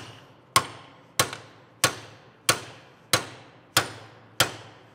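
Hammer striking a metal bushing driver to drive a clamshell bushing into a Toyota Tacoma's front differential housing: seven evenly paced metallic blows, about three every two seconds, each with a short ring.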